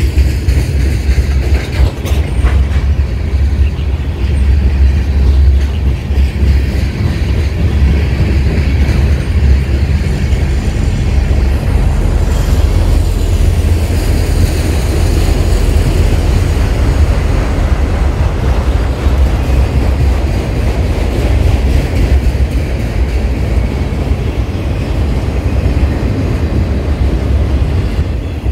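A long freight train of boxcars, covered hoppers and autorack cars rolling past close by. Its steel wheels run over the rails with a loud, steady rumble, with a few sharp clicks about two seconds in.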